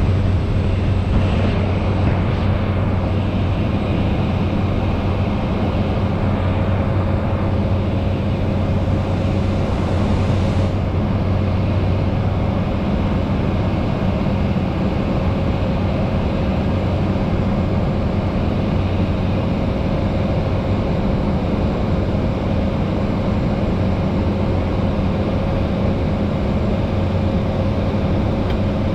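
Propeller airplane's engine and propeller droning steadily, heard from inside the cockpit on approach to landing.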